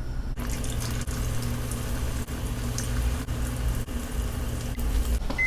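Cornstarch-coated tofu cubes deep-frying in hot oil in a wok: a steady sizzle over a low, steady hum.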